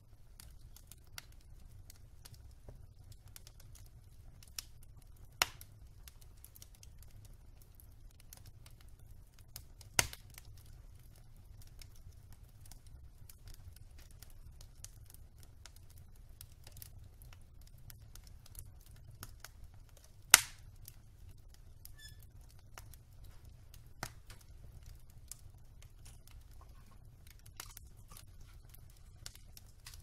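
Wood logs burning in a fireplace: faint continuous crackling with scattered sharp pops, over a faint low hum. The loudest pop comes about twenty seconds in, with others about five, ten and twenty-four seconds in.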